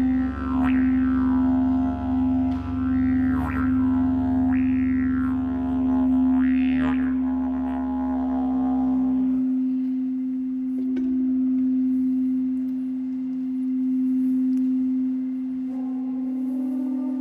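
Tibetan singing-bowl music: a steady ringing tone held throughout over a low drone, with overtones sweeping up and down every second or so. About nine seconds in the low drone and the sweeps stop, leaving the steady ringing tone.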